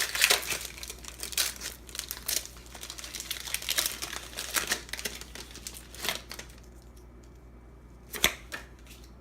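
Foil Pokemon trading-card booster pack wrapper crinkling as it is torn open. Dense crackling dies down about two-thirds of the way through, with one more sharp crackle near the end.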